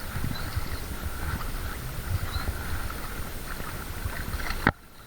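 Low, uneven rumbling and knocking from a small boat on the water. Near the end there is one sharp knock, and then the sound drops away suddenly.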